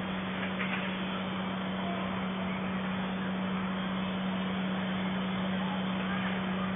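Steady hiss with a constant low hum, unbroken and unchanging.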